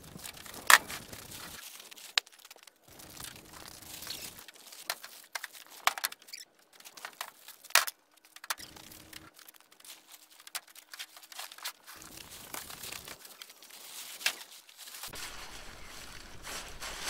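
Rustling and crinkling of nylon tent fabric and gear bags being handled, with scattered sharp clicks and knocks of gear set down, the loudest less than a second in.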